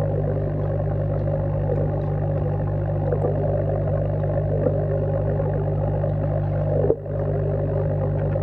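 Steady low hum of an aeration air pump heard underwater, with the faint crackle of bubbles rising from the air stone. The hum cuts out for an instant about seven seconds in.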